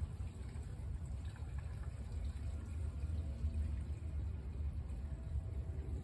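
Gasoline pouring from a plastic gas can into a small engine's fuel tank, over a steady low rumble.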